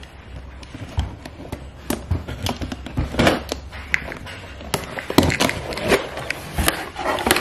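Small cutting tool scraping and snipping at packing tape on a box, with irregular clicks, scrapes and rustles of the box and its packaging as it is handled.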